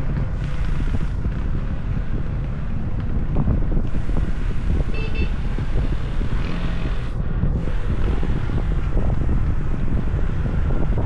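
Wind buffeting the microphone of a moving car, over a steady low rumble of engine and road. A brief high-pitched tone sounds about five seconds in.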